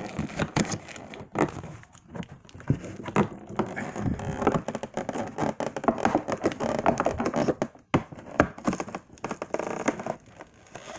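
Cardboard toy packaging being torn and handled: irregular crackling, crinkling and ripping.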